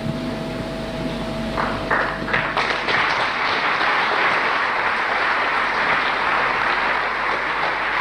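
Applause: a few claps start about one and a half seconds in and quickly swell into a full, steady round of crowd clapping.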